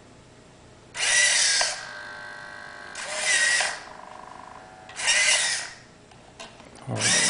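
Hobby servo motors inside a 3D-printed robotic forearm whirring in short bursts about every two seconds as they pull the hand's fingers closed and open. Each burst lasts well under a second with a rising and falling whine, and a faint steady hum sits between bursts while the servos hold position.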